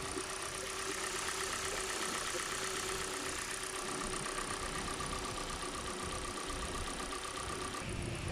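Hyundai Elantra petrol engine idling steadily, running again now that its clogged fuel filter has been cleared.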